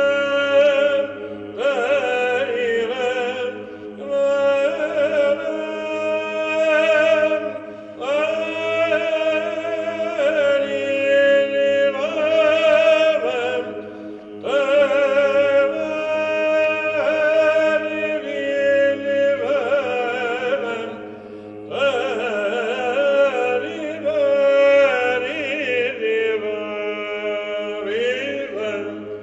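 Male voices singing Byzantine chant: a lead cantor carries a melismatic melody in long phrases while a low held drone (the ison) sounds under it without a break.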